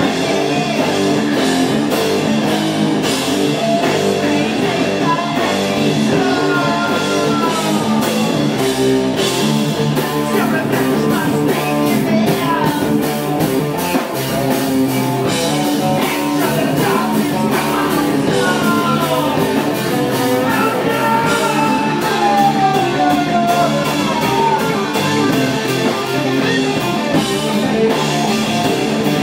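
Live rock band playing with electric guitars, bass guitar and drum kit, with a high melodic line sliding and bending in pitch through the middle of the passage.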